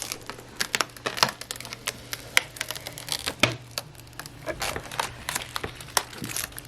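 Packaging being unwrapped and handled, crinkling and rustling in a dense, irregular run of crackles and clicks.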